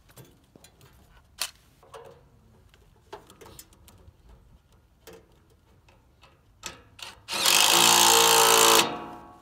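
Gloved hands clicking and knocking on metal as cables and hardware are handled. Then a DeWalt cordless drill/driver runs for about a second and a half near the end, driving a bolt on the transformer's secondary connector bars, and winds down. The drill/driver is the loudest sound.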